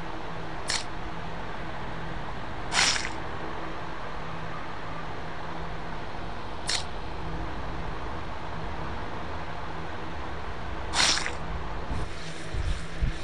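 Four short, wet popping sound effects for pustules being pricked with a needle, spaced a few seconds apart, the second and fourth longer and louder. They sit over a steady background hiss with a faint low hum.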